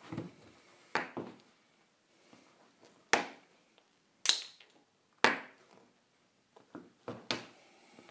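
Nike Air Max 2013 sneakers set down and stamped on a wooden floor: a series of separate knocks and taps, the three loudest in the middle about a second apart.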